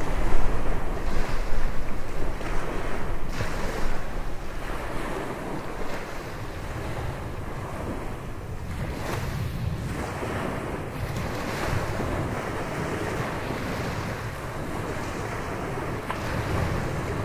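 Gulf surf breaking and washing on the beach, with wind buffeting the microphone, gustiest and loudest in the first few seconds before settling to a steady wash.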